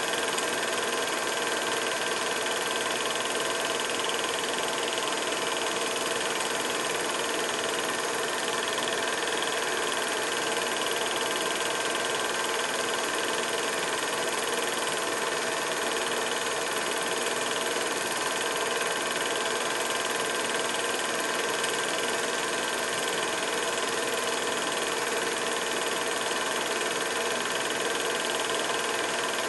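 Steady, unchanging mechanical running noise: an even hiss with several steady tones through it.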